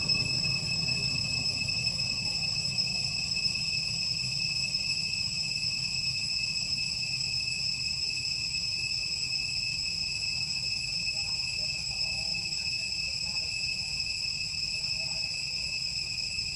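Steady, high-pitched insect drone, one unbroken tone with overtones, over a faint low rumble.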